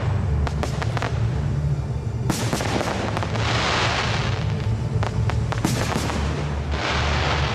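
Aerial fireworks going off: a string of sharp bangs and cracks, with two longer hissing, crackling bursts about three seconds in and again near the end, over steady music with a low beat.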